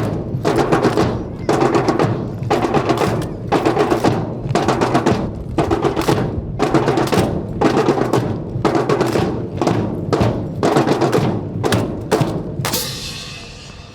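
Drum cadence played in a steady beat of roughly two strokes a second, with a final brighter hit near the end that rings off.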